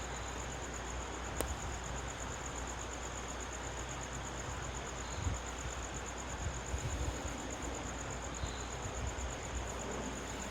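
Insects trilling steadily at a high pitch over a low background hiss and rumble, with a few low thumps and one sharp click about a second and a half in.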